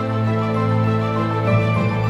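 Instrumental background music with long held notes over a steady bass note. The chord changes about one and a half seconds in.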